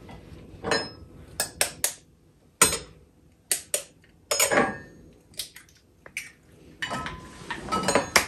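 Kitchen bowls and utensils knocking and clinking: about a dozen sharp, irregular taps, closer together near the end.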